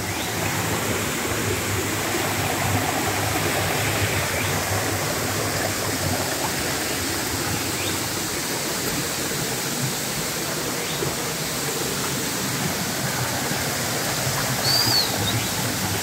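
Swollen, muddy rocky creek rushing strongly over sandstone slabs and potholes after heavy rain: a steady wash of running water. A brief high chirp sounds near the end.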